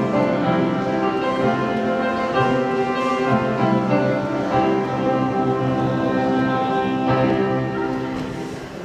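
Orchestral music with held notes, getting quieter near the end.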